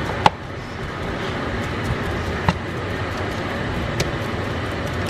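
Shredded chicken sizzling as it warms in a nonstick skillet, a steady hiss, with three sharp taps of a plastic spatula against the pan.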